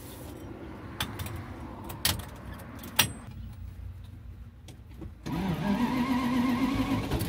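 A few sharp clicks, then the 1971 Dodge Charger's engine starts a little over five seconds in and keeps running.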